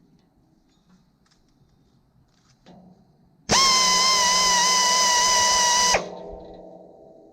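Electric grinder sharpening a sawmill blade tooth: a high, steady whine with grinding hiss for about two and a half seconds, then switched off, its tone sinking and fading as the disc spins down. A few faint clicks come before it.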